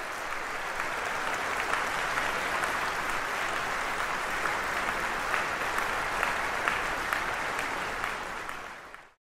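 Crowd applauding: dense, continuous clapping that swells in over the first second and cuts off abruptly just before the end.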